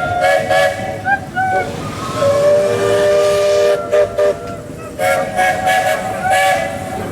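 Buckeye three-chime steam locomotive whistle blowing a series of short and long blasts. A second, lower-pitched chime whistle sounds between about two and four seconds in, and the first whistle returns with a long blast near the end.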